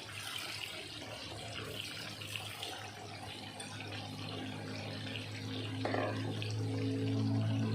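Chicken pieces sizzling and crackling in hot frying oil, half-frying. About halfway through, a steady low hum joins in and grows louder.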